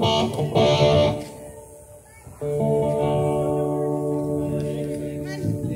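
Electric guitar chords played through a stage amplifier: loud strummed chords in the first second, then a chord struck about two and a half seconds in and left ringing for about three seconds.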